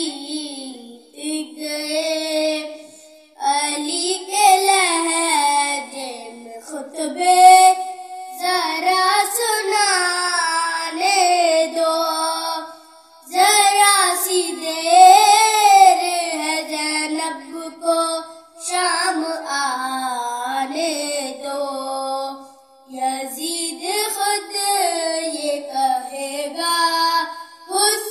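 A boy singing an Urdu manqabat, a devotional poem, unaccompanied, in phrases of a few seconds with short breaks for breath between them.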